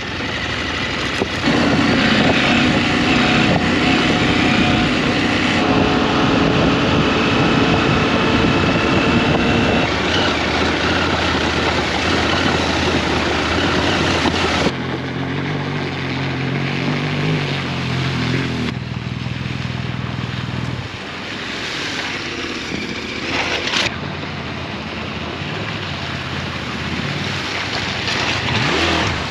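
KTM 890 Adventure R's parallel-twin engine running as the bike is ridden off-road, with wind noise on the helmet microphone. Past the midpoint it settles to a steadier, lower note. The sound changes abruptly a few times.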